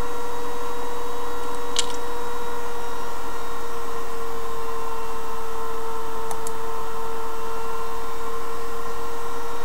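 Steady electrical hum and hiss with a constant mid-pitched tone, and a faint tick about two seconds in.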